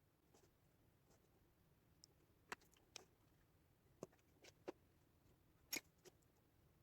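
Faint, scattered clicks and taps, about seven of them from a couple of seconds in, made by small hand tools working on a plastic speaker casing.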